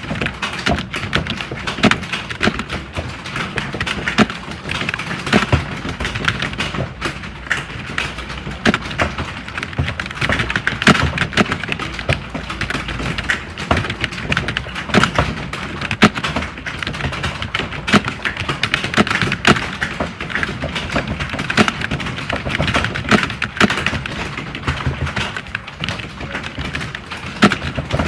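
Computer keyboards being typed on fast, a dense, unbroken clatter of overlapping keystrokes, the sound of a typing test in progress.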